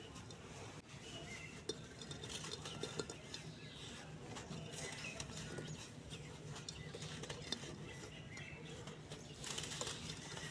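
Grainy cement-sand lumps crumbling and being crushed: a continuous run of small crackles and crunches, with a few sharper snaps.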